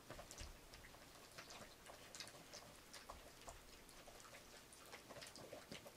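Faint, irregular clicking and light wet ticks of chunks of mushroom, pepper, pineapple and lobster knocking about in a plastic bowl of teriyaki marinade as the bowl is shaken and tossed.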